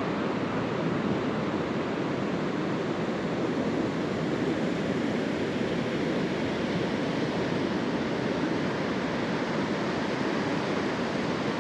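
Steady ocean surf washing onto a beach: an even, unbroken rush of water noise.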